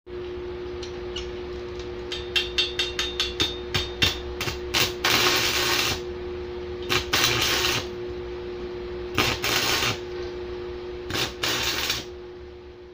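Stick (arc) welding with a homemade welder built from a microwave oven transformer: a run of sharp crackling clicks as the electrode is struck to start the arc, then the arc crackling and sizzling in four bursts of about a second each. A steady hum runs underneath.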